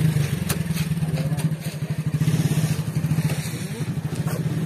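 An engine idling, a steady low pulsing, with a few light clicks.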